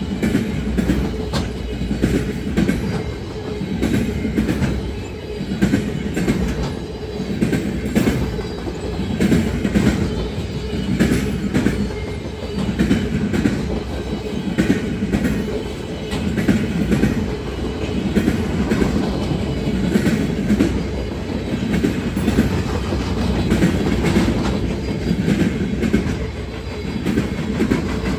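Freight train of loaded flatcars rolling past: a steady rumble of steel wheels on rail, rising and falling in waves, with repeated clacks as the wheelsets cross rail joints.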